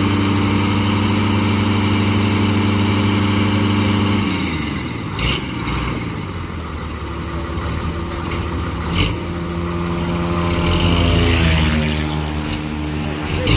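Diesel engine of a Fuso truck running, steady for about four seconds before its note drops, then climbing again later on. Three short, sharp knocks cut through it, about four seconds apart.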